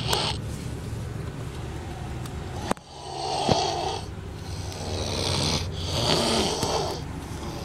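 Snoring: long noisy breaths that swell and fade every second or two, with a brief click about a third of the way in.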